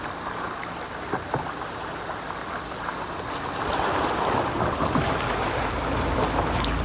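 Rain-swollen muddy stream rushing over rocks, a steady wash of water noise that grows a little louder about halfway through.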